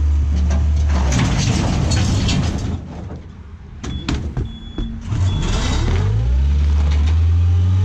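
Skid-steer loader's diesel engine working under load as it drags a wrecked pickup on a chain. The sound drops away for a couple of seconds in the middle, with a few knocks and short high beeps, then the engine comes back up and runs on steadily.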